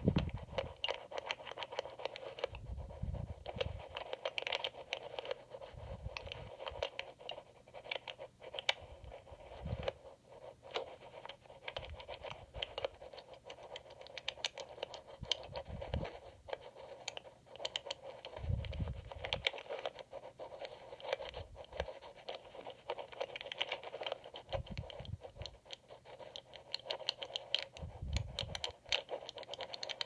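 Amplified scratching and rapid small clicks of a steel lock pick working the rotors inside an EVVA MCS magnetic cylinder lock, with a dull low thump every few seconds.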